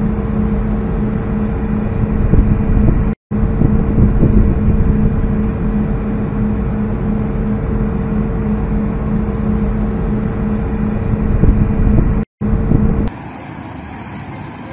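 Boat engine running steadily: a constant low hum over a heavy rumble. The sound cuts out briefly twice and gives way to a quieter hiss about thirteen seconds in.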